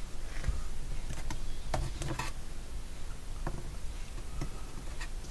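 Faint, scattered clicks and taps of fingers handling and pressing small wooden strips against a wooden model ship hull, a few separate ticks spread over several seconds.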